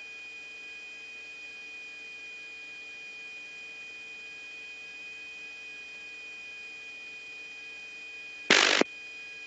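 Steady hiss and hum of an open radio channel, with several constant whining tones over it. Near the end comes one short, loud burst of noise lasting a fraction of a second.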